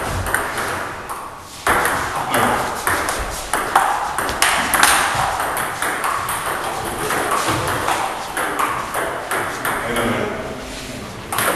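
Table tennis ball clicking back and forth off the bats and table in a rally, a string of short, sharp ticks, with voices talking in the hall behind.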